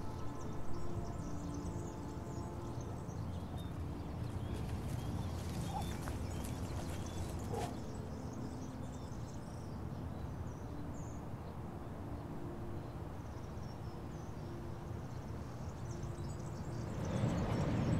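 Outdoor ambience: a steady low rumble with a few faint high bird chirps. Near the end, a vehicle grows louder as a truck approaches.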